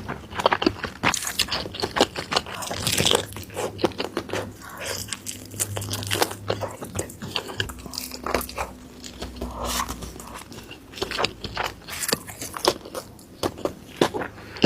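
Close-miked mukbang eating: a person biting and chewing crunchy food in quick irregular crackles and clicks, with an occasional scrape.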